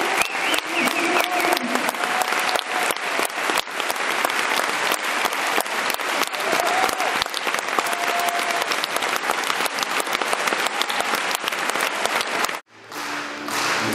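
Theatre audience applauding steadily after a tango show. It cuts off suddenly near the end, and music starts.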